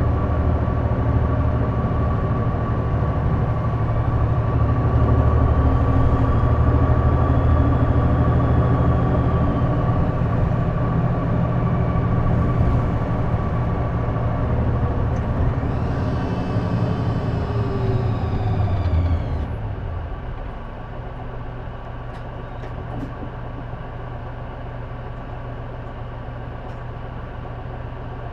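Diesel engine of a J-Bus city bus heard from inside, pulling with whines that glide in pitch, then dropping back to a quieter idle about twenty seconds in. A steady high whine runs throughout; this bus has an odd noise that the uploader places somewhere in the exhaust or turbo.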